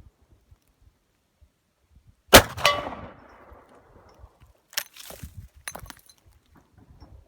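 A single loud, sharp bang with a metallic ringing tail about two seconds in: a black-powder Martini-Henry rifle firing. A few light clicks follow a couple of seconds later.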